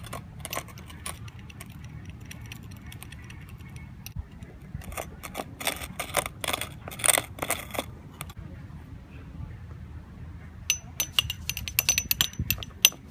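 Thin metal rod clinking and scraping against the inside of a glass vase while packing coloured sand into a layered picture: clusters of light clinks about a second in, through the middle, and again near the end, some ringing briefly. A steady low hum runs underneath.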